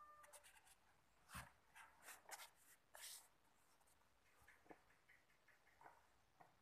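Faint paper rustling as a thin page of an old handwritten book is turned: a cluster of crisp rustles with a soft thump in the first three seconds, then a few light ticks as the page settles.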